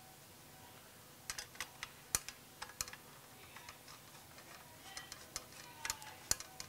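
Faint, irregular metallic clicks and taps as small button-head bolts are handled and threaded by hand through a radiator brace plate into its rods, about a dozen clicks starting a second in.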